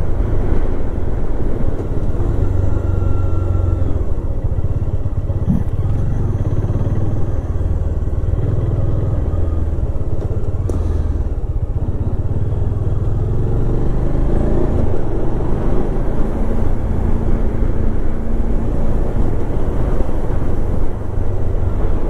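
Motorcycle engine running as the bike rides down a winding hill road, with steady road and wind noise. The engine note eases as the bike slows to about 20 km/h for a hairpin bend near the middle, then picks up again as it regains speed.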